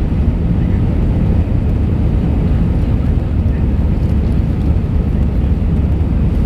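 Steady low rumble of an Airbus A319's cabin in the climb after take-off: jet engines and rushing air heard from a seat over the wing, with no change in pitch or level.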